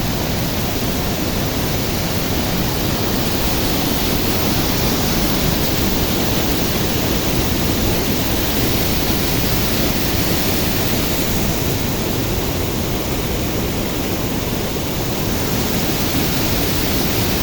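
Large waterfall, a steady, loud rush of falling water.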